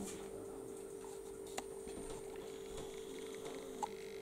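Steady electrical hum from a 24-volt British Railways lamp inverter driving a lit 26 W low-pressure sodium (SOX) lamp, with a faint high whine that stops about halfway. A few light clicks.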